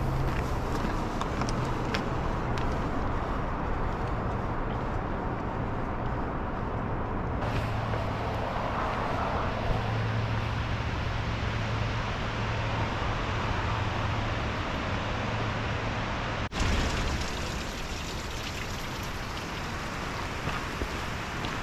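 Steady rumble of distant road traffic with a low hum. The sound changes abruptly twice, about seven and a half and sixteen and a half seconds in.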